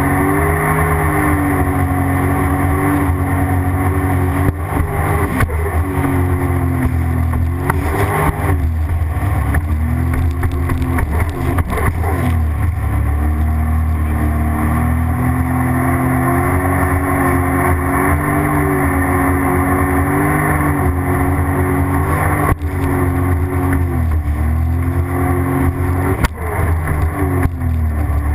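Sea-Doo GTX jet ski engine running under way, its pitch rising and falling again and again as the throttle is worked. A few short knocks cut in along the way.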